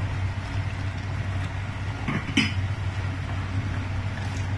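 A steady low hum runs throughout, with a sharp clink of a utensil against a metal cooking pot about halfway through. Near the end a wooden spoon starts stirring chopped greens in the pot.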